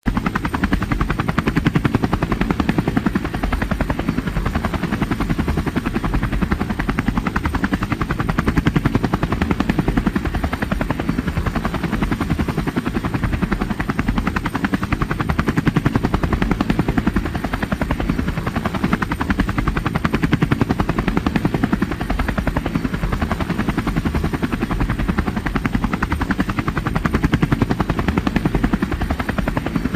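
Helicopter running steadily: the rapid chop of its rotor blades over a deep, continuous drone, swelling slightly every few seconds.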